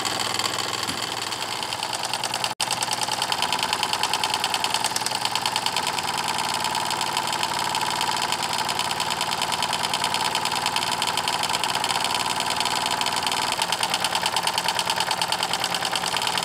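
Wilesco D6 model steam engine running at its normal operating speed: the single-acting oscillating (wobbler) cylinder chuffs in a fast, even beat as the flywheel spins. There is a brief break in the sound about two and a half seconds in.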